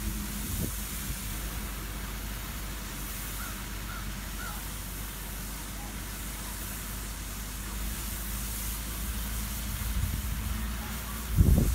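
Steady outdoor background of a fountain's spray hissing over a low city traffic rumble, with a few faint high bird chirps about three to four seconds in. A brief low buffeting on the microphone near the end.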